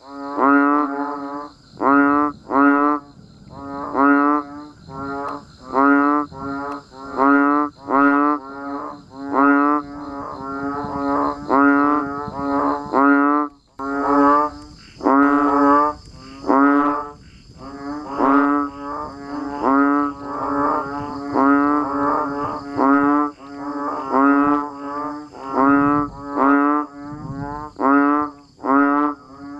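Frogs calling in a chorus, among them banded bullfrogs (Asian painted frogs): short, low croaks with a clear pitch, about one a second, sometimes two callers overlapping, over a steady high hiss.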